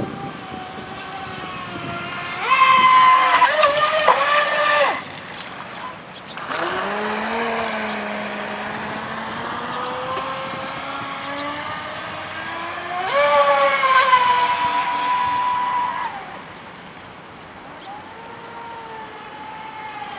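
Feilun FT011 RC speedboat's brushless motor whining as the boat runs flat out across the water, the pitch rising and falling with the throttle. There are two loud high-pitched bursts, one a couple of seconds in and another past the middle, with a lower whine gliding upward between them.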